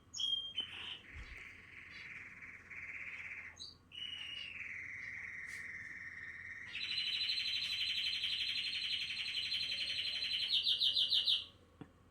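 Canary singing a run of long, rapid trills, each held at one pitch for a few seconds before switching to the next. A middle trill is followed by a lower one about four seconds in, then a higher, louder one about seven seconds in, which breaks into quick separate notes and stops near the end.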